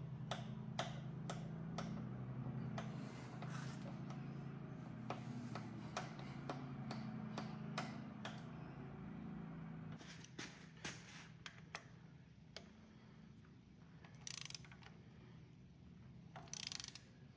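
Milling machine table traversing with a steady low motor hum and regular light clicks, which stop about ten seconds in. A few scattered metal clicks follow, then two short bursts of ratchet-wrench clicking near the end as the vise hold-down nut is tightened while the vise jaw is being indicated in.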